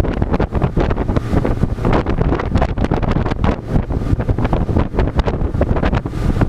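Heavy wind buffeting the microphone: a loud, gusty rumble with irregular thumps.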